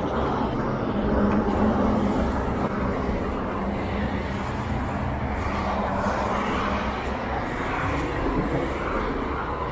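Steady rumble and hiss of vehicle traffic: a busy city street's background noise.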